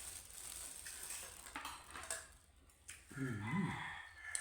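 Eating noises with small clicks, then a short wavering vocal sound a little after three seconds in.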